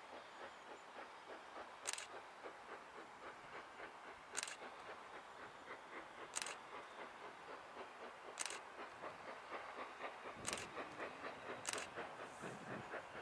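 Steam locomotive hauling a train, heard faintly from a distance: a rapid, even chuffing of its exhaust, with sharp clicks about every two seconds.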